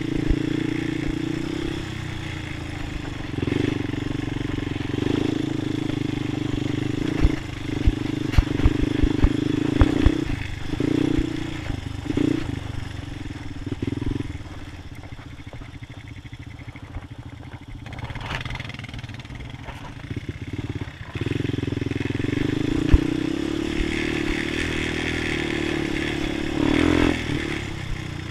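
Honda TRX250EX sport quad's single-cylinder four-stroke engine running while riding a rough trail. The throttle eases off for several seconds about halfway through, then opens up again near the end. Sharp knocks and rattles come from the bumps about a third of the way in.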